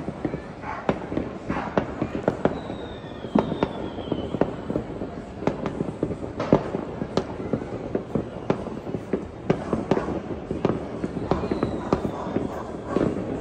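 Many fireworks bursting across a city, a dense and irregular run of sharp bangs and pops at varied distances. A faint, high, falling whistle is heard twice.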